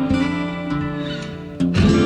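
Background music: strummed guitar chords ringing out, with a fresh strum near the end.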